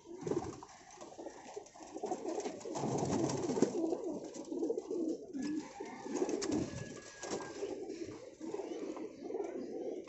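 Many domestic pigeons cooing at once, a dense overlapping chorus of low, wavering coos.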